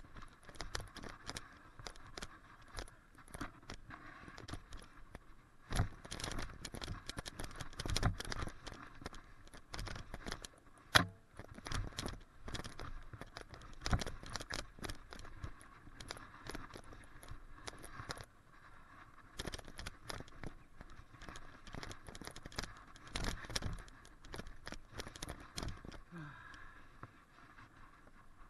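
Mountain bike rattling and knocking as it rides down a rough, rocky trail: loose parts jangling and tyres scraping over rock and dirt, in an uneven stream of bumps with one sharp clank about eleven seconds in. Heard through an action camera mounted at the handlebars.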